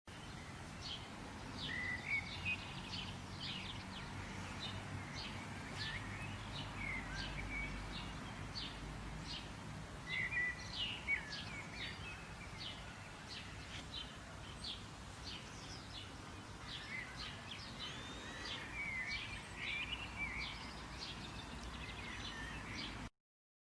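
Songbirds chirping, with many short calls and a few quick up-and-down phrases, over a steady low outdoor rumble.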